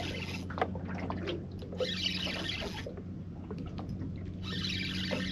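Water lapping and trickling, with a few small clicks and knocks and a steady low hum underneath.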